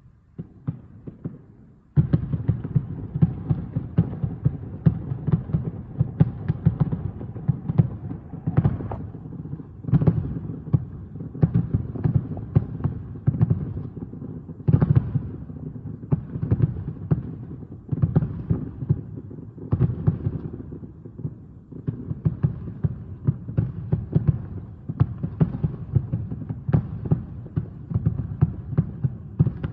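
Distant aerial fireworks going off in a rapid, dense barrage of booms and cracks, many bursts a second, starting abruptly about two seconds in and keeping on without a break.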